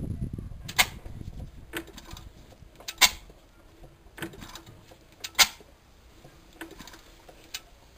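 1917 Amanco Hired Man stationary engine being turned over by hand at the flywheel, its mechanism giving sharp metallic clicks about once every 1.2 seconds, every other click louder, once per turn of the crank.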